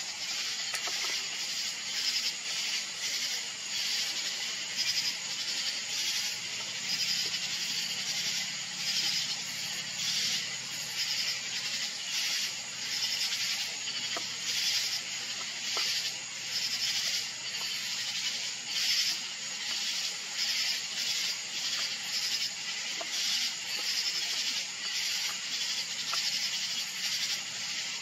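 Night insects chirping in a steady outdoor chorus that pulses evenly about twice a second.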